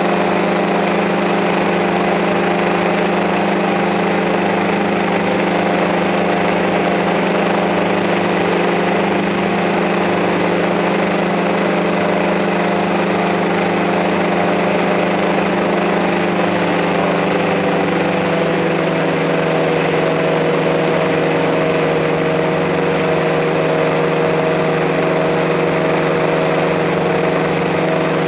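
Multirotor drone's motors and propellers whirring steadily in flight, a hum of several tones whose pitch shifts about two-thirds of the way through as the motors change speed.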